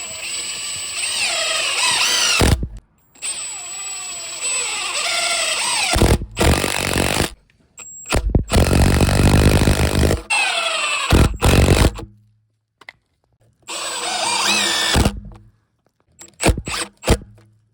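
Cordless power drill driving screws to fasten a 4x4 wooden post into its post foot. It runs in several spells of a few seconds each with short pauses between, the motor pitch rising and falling as the trigger is worked, and ends with a few short bursts.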